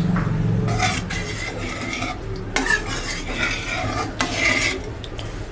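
Metal ladle stirring a thin, watery curry gravy in a metal wok, four wet scraping sweeps of about a second each, with a light sizzle; hot water has just been added to the fried masala and has not yet come to the boil. A low hum fades out in the first second.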